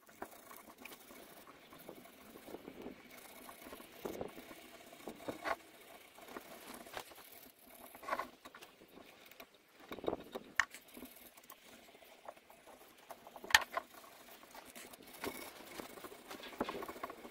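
Sandpaper rubbed by hand over a carved wooden column, in uneven scratchy strokes as it is worked into the carving. A few sharp clicks are mixed in, the loudest about three-quarters of the way through.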